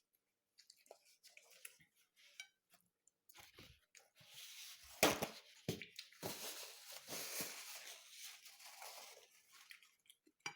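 Close-up eating and food-handling sounds. Faint clicks at first, then a few sharp crunches about five seconds in, followed by several seconds of tearing, rustling noise that fades out near the end.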